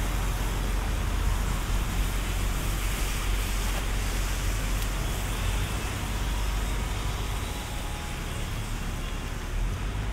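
Steady hiss of heavy storm rain in a city street, with a deep continuous rumble underneath, easing slightly after about seven seconds.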